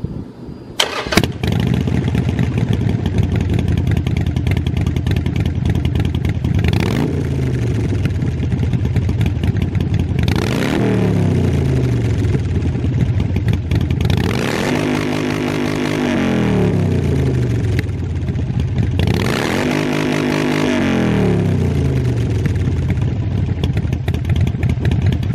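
A 2019 Harley-Davidson Sportster 48's 1200 cc V-twin, breathing through a Vance & Hines aftermarket exhaust, starts about a second in and settles into a loud idle. It is blipped four times, the pitch jumping up and falling back each time, the third rev held longest. It shuts off at the very end.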